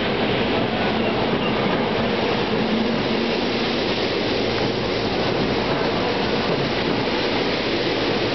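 SEPTA GE Silverliner IV electric multiple-unit cars running through a station at speed close by: a steady, loud rushing noise of steel wheels on rail that holds level as car after car goes past.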